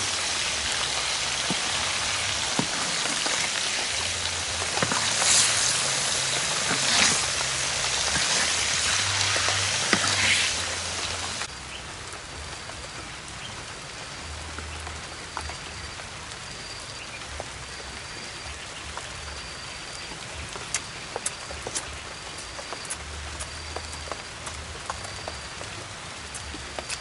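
Hot oil sizzling hard around a whole chicken frying in a wok, a dense hiss that swells a few times and cuts off abruptly after about eleven seconds. After that it is much quieter: a faint high chirp repeats steadily about once a second, with scattered small clicks.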